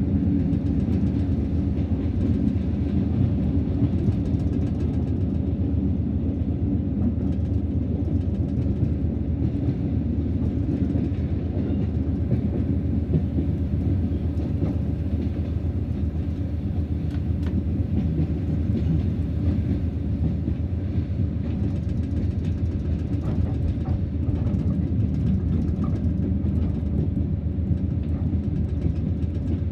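BB 60000 diesel locomotive running along the line, heard from its cab: a steady low engine drone together with the rumble of the wheels on the track. Faint clicks come through now and then.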